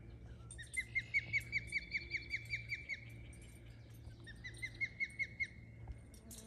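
A bird at its nest calling runs of short, falling whistled notes, about six a second, in two bouts; the calling bird could be an osprey, and the calls are typical of an osprey alarmed at an intruder near its nest.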